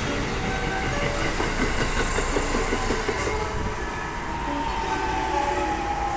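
JR West commuter electric trains running through the station: wheels rumbling on the rails, with a steady electric motor whine. From about halfway through, one whine falls slowly in pitch as a train slows alongside the platform.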